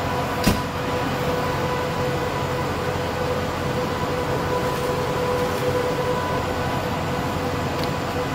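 Steady drone of an ambulance running at idle, with a faint steady tone through it, and a single sharp knock about half a second in.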